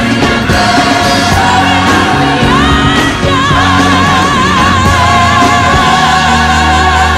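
Gospel music with choir singing over an instrumental backing; about two and a half seconds in, a lead voice slides up and holds a long note with vibrato.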